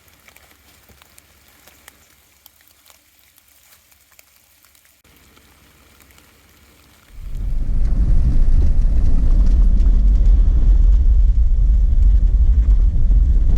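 Light rain pattering with faint scattered drips. About halfway through, a loud, low, steady rumble starts suddenly and covers everything.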